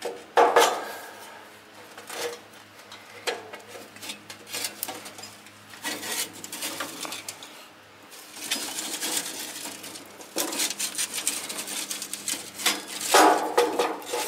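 A steel charcoal chimney starter clanks and scrapes against the steel firebox opening as it is pushed in and tipped, and lit charcoal rattles out onto the grate. There are sharp metal knocks about half a second in and again near the end, with a denser stretch of scraping and rattling in between.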